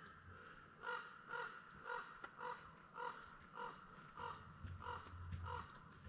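A crow-family bird cawing in a steady series of about nine harsh calls, a little over half a second apart.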